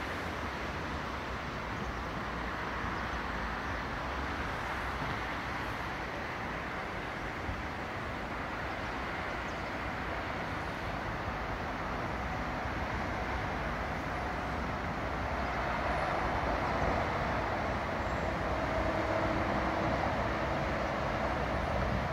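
Steady road traffic noise from a highway carrying lorries and cars, with a faint engine hum. It swells in the last several seconds.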